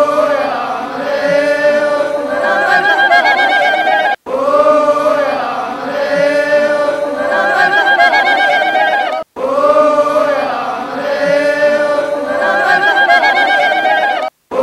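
A group of voices chanting and singing together without instruments, in a held, wavering phrase with vibrato. The same phrase of about five seconds repeats three times, each time cut off by a moment of silence.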